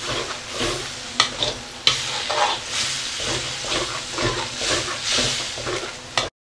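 Metal spatula stirring and scraping prawns and vegetables in a wok, with the sauce sizzling in the pan. The sound cuts off abruptly near the end.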